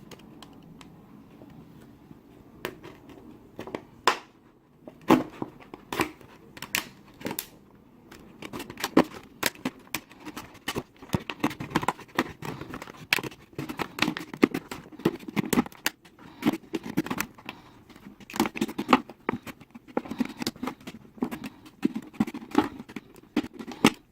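Utility knife slicing around the base of an empty 2-litre plastic soda bottle: irregular crackling clicks and crinkles of the thin plastic, sparse at first and getting louder and busier from about eight seconds in.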